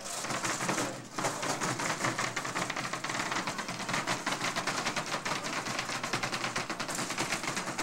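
Small combat robots driving and colliding on a plywood arena floor, making a dense, rapid rattling clatter that dips briefly about a second in.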